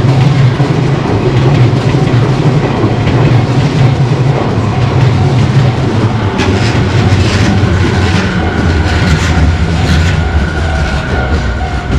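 A Tobu Tojo Line electric train passing over a level crossing, its wheels clattering over the rail joints. From about halfway through, sharper clacks and a steady high whine join the continuous rumble.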